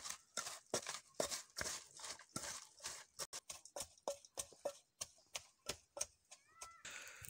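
Wooden pestle pounding chopped ingredients in a metal bowl in steady strokes, about three a second, with a wet, mashing knock. The strokes thin out and stop about six seconds in.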